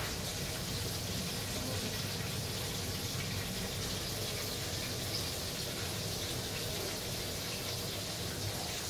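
Steady, even rushing noise at a constant level, with no clear events in it.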